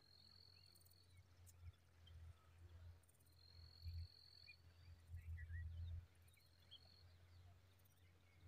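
Faint thin, high-pitched begging calls of common babbler nestlings: three drawn-out notes, one near the start, one around the middle and one near the end, with a few short chirps between. Behind them are faint insect buzzing and a low rumble that comes and goes.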